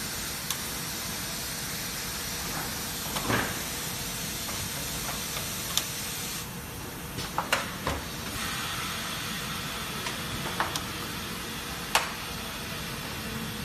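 Multi-head ultrasonic plastic welding machine for car instrument panels cycling: a steady hiss with several sharp clicks and clacks scattered through as its pneumatically driven welding heads move. The high part of the hiss thins out about halfway through.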